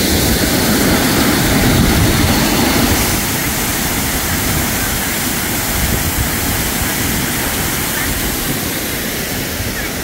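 Waterfall cascading over rock: a steady, loud rush of falling water, a little heavier in the first few seconds.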